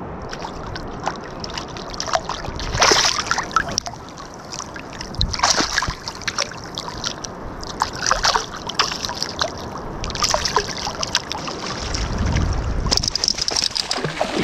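Water splashing and sloshing close to the camera at the surface in bursts every couple of seconds, as a small hooked shark thrashes alongside; the biggest splashing comes near the end.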